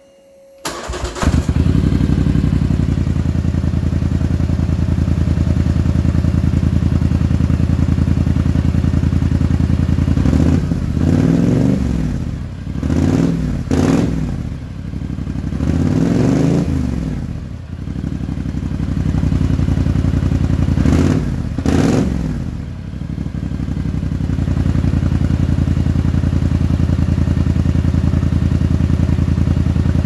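Polaris Scrambler 850 ATV's 850 cc parallel-twin engine running through a Big Gun slip-on exhaust: it starts about a second in and idles, is revved up and back down four times in the middle, then settles back to a steady idle.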